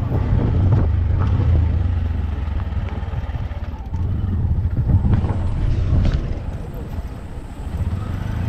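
Auto-rickshaw engine running as it drives, heard from inside the open passenger cabin: a steady low drone under road and wind noise.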